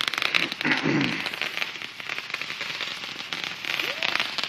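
Fireworks crackling: a dense, rapid run of small sharp pops.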